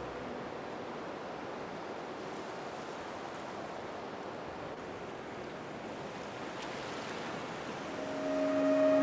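Steady outdoor rushing noise, even and without distinct events. About eight seconds in, a held low tone with overtones fades in and swells louder.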